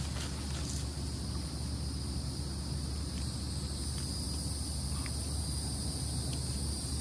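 A steady, high-pitched chorus of insects chirring, over a low steady rumble.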